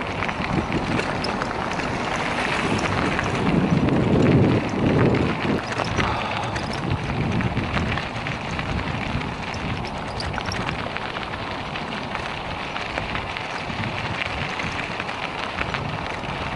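Bicycle riding on a gravel rail-trail: tyres crackling over the gravel under steady wind noise on the microphone, with two heavier wind gusts about four to five seconds in.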